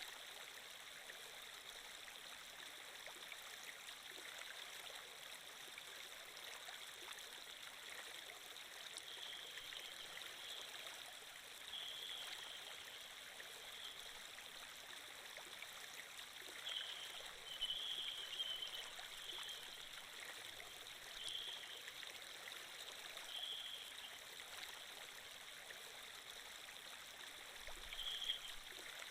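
Steady flowing-water sound effect, like a running stream, with short, slightly louder spots every few seconds.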